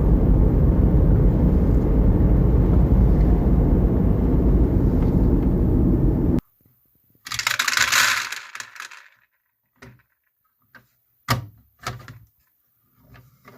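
Marbles rolling along a wooden marble run, a loud steady rumble that stops abruptly about six seconds in. A short rushing hiss follows, then a few separate clicks and knocks.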